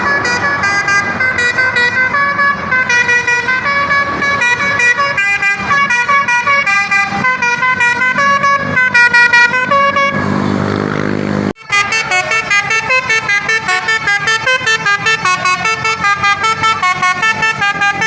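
A bus's telolet horn, a multi-tone musical horn, playing a quick melody of stepped notes to an old-fashioned tune. About ten seconds in there is a short rush of noise and a brief break, then the horn melody starts again.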